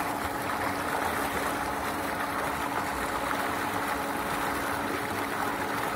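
Water pump outlet pipe pouring a heavy jet into a round stone tank, a steady rushing splash of churning water with a constant hum underneath.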